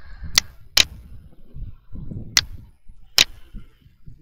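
Computer mouse clicking: four sharp clicks, two in quick succession near the start, then two more about two and three seconds in, over a faint low background rumble.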